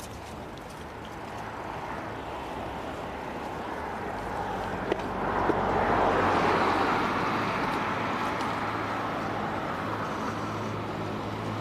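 A road vehicle passing, its tyre and engine noise swelling to a peak about halfway through and then slowly fading.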